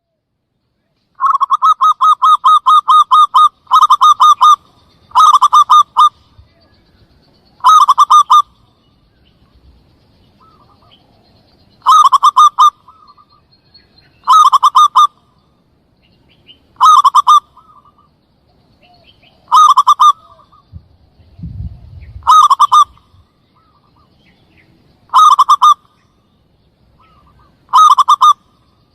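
Zebra dove (perkutut) lure call: loud bursts of rapid staccato cooing notes, repeating every two to three seconds, beginning with a longer run about a second in, with fainter calls between the bursts.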